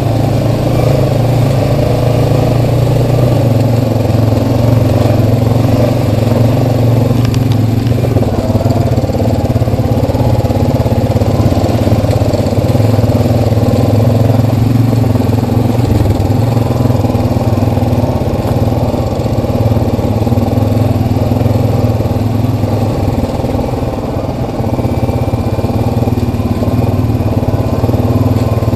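Single-cylinder ATV engine running steadily at low trail speed, easing off briefly about three-quarters of the way through.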